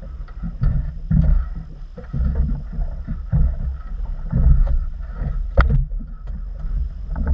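Wind buffeting the microphone and water slapping against a small inflatable boat at sea, coming in uneven low surges, with one sharp click about five and a half seconds in.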